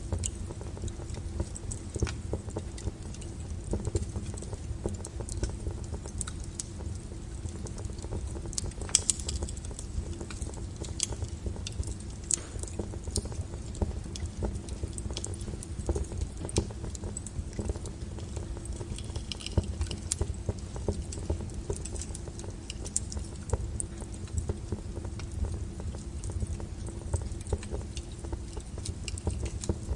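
Wood fire burning, with a steady low rumble and frequent irregular crackles and pops, a few sharper pops about nine seconds in.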